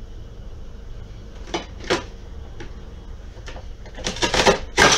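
Plastic clacks and knocks of a manual vegetable chopper dicing onion. A few scattered knocks, then a quick run of loud, sharp clacks near the end as the chopper is pressed down.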